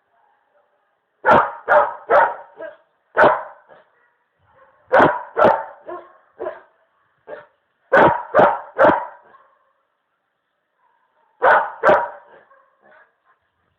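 A dog barking in short runs of two to four loud barks, with pauses of a second or two between runs.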